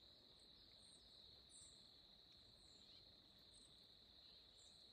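Near silence: a faint, steady high-pitched insect chirring, with a few faint short chirps above it.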